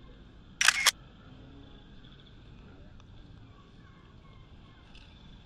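A camera shutter firing once, a quick double click, about half a second in, over faint outdoor background noise.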